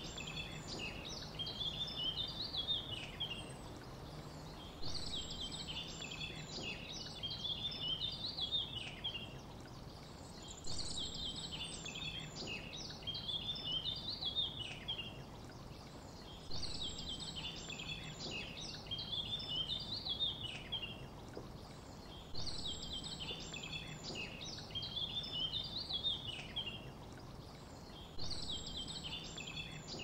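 A songbird singing a short, high, quickly varied phrase of about three seconds, repeated roughly every six seconds, over a faint steady low hum.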